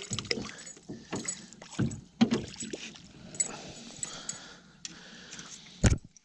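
Irregular knocks, clicks and rustling of a hooked fish being handled in a small boat, with one loud thump about six seconds in.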